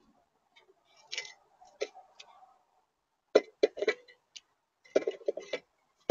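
Blue jay picking through peanuts in a tray feeder close to the microphone: sharp clicks and taps of its beak against the nuts and the feeder. A few scattered clicks come first, then two quick clusters, one about midway and one near the end.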